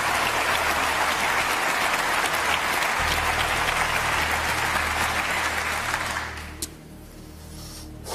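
Studio audience applauding, dying away about six seconds in.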